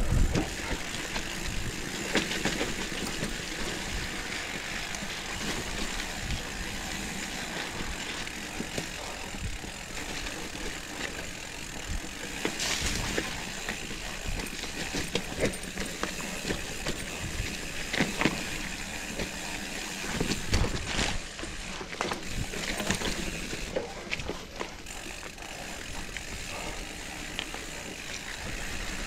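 Mountain bike rolling fast down a dirt singletrack: tyres running over dry leaf litter and roots, with the bike rattling and clicking and several sharp knocks from bumps along the way.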